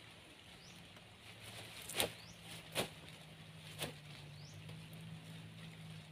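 Wire-mesh trap clicking and rattling as it is handled, with three sharp clicks about two, three and four seconds in, the first the loudest. Faint short rising chirps sound now and then behind them, over a steady low hum.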